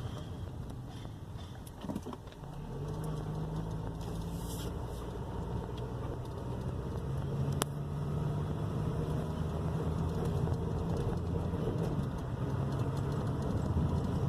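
Cabin sound of a 2001 Toyota Corolla under way: its 1.8-litre four-cylinder engine running over road noise. The engine note rises a little about two and a half seconds in, and the sound grows louder toward the end. There is a single sharp click about seven and a half seconds in.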